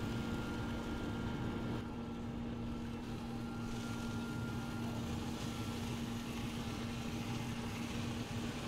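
Steady hum of a running Yoder YS640 pellet smoker, its fan motor holding one low, even tone.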